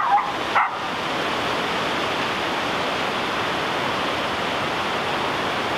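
Waterfalls and a boulder-strewn river rushing below, a steady, pretty loud roar of falling water.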